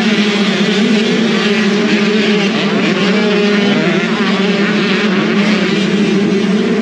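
Several motocross bikes running on a dirt track, their engines revving up and down through the gears so the pitch keeps rising and falling in a dense, continuous drone.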